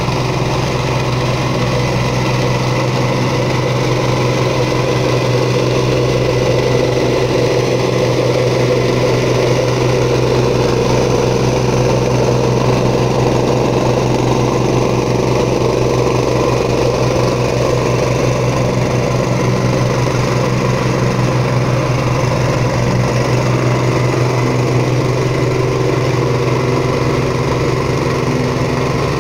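Vibratory plate compactor with a small petrol engine running steadily as its plate vibrates over interlocking concrete paver tiles to bed them in.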